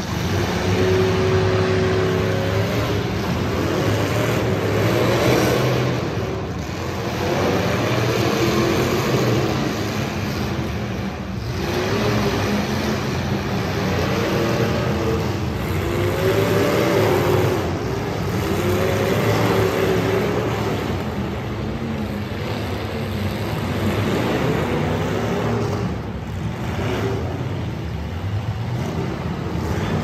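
Demolition derby cars' engines running and revving over a steady rumble, the pitch rising and falling again and again.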